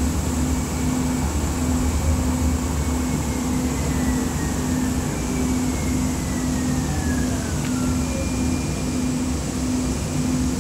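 Interior of a Siemens S200 light rail car under way: a steady low rumble with a low tone that pulses on and off about one and a half times a second. Over it, an electric drive whine falls in pitch twice, and a steady high tone sounds near the end.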